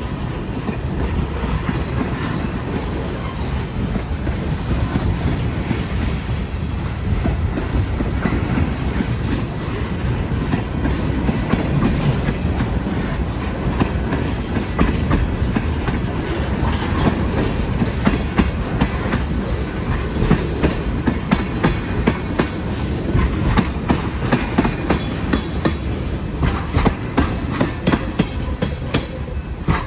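A freight unit train of tank cars rolling past: a steady rumble of steel wheels on rail, with clickety-clack as the wheels cross rail joints. The clicks come sharper and more regular in the second half.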